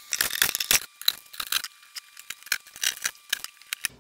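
Metal drawer slides clinking and rattling as they are handled and worked loose, a quick run of irregular light metal clicks that thins out after the first second.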